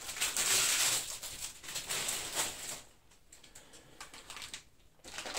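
Plastic packaging rustling and crinkling as parts are handled, with light taps as they are set on a wooden table. It dies down to a few faint ticks about three seconds in.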